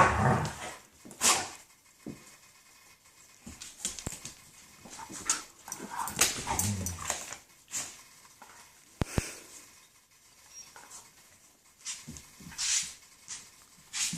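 German Shepherds playing, giving short, irregular bursts of growling, whining and barking with quiet gaps between them. Two sharp clicks come a little past the middle.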